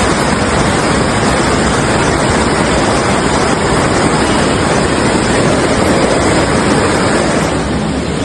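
Loud, steady rush of floodwater.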